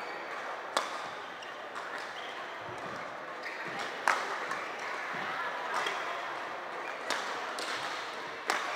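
Badminton rackets striking a shuttlecock in a rally: about five sharp smacks spaced unevenly, the loudest about four seconds in, over faint background chatter.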